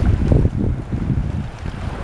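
Wind buffeting the microphone in uneven gusts that ease off after about a second and a half, with the sea's surf washing faintly beneath.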